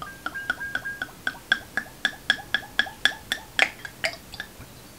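Baileys Irish cream glugging out of its glass bottle as it is poured into a large wine glass. A regular run of pitched glugs comes about four a second and stops about four and a half seconds in.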